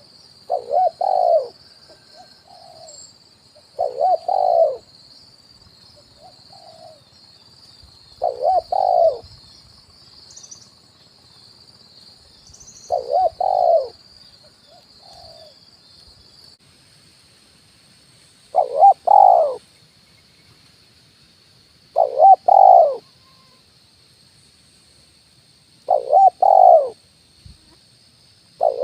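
Spotted dove (tekukur) cooing in the 'kuk 1' call style used as a trapping lure: a short phrase of coos, about a second long, repeated every three to four seconds, with softer single notes between the first few. A steady high hiss runs underneath.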